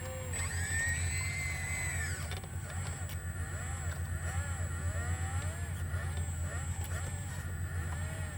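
Sumitomo SH120A3 excavator's diesel engine running steadily, with a whine above it that rises and falls repeatedly as the machine works.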